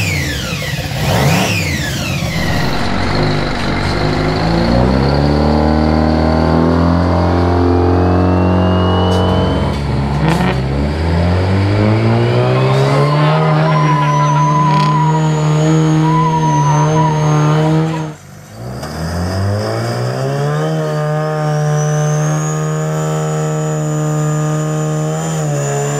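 8V92 Detroit Diesel two-stroke V8 in a rat-rod tow truck, revved up and held at high rpm several times, each rise bringing a high whine that climbs with it. The engine drops back about ten seconds in, is revved again and held, then cuts off sharply a few seconds later before revving up and holding once more.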